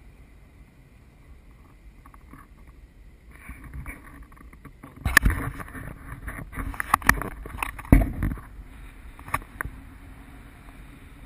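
Wind buffeting and knocking on an action camera mounted on a parasail bar as the camera swings round: a low rushing noise that builds from a few seconds in, with a run of loud crackling thumps in the middle.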